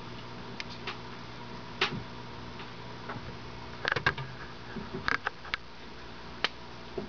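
Scattered light clicks and taps against hard plastic, with a cluster about four seconds in and another about five seconds in, over a steady low electrical hum.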